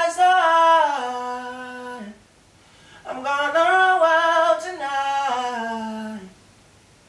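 A man singing alone, with no backing music, in two phrases that each step down in pitch. The first phrase ends about two seconds in, and the second runs from about three seconds to about six.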